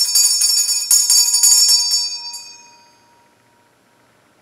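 Altar bells (Sanctus bells) shaken in a quick run of strokes, about four a second, for roughly two seconds, then ringing away. They mark the elevation of the chalice after the consecration.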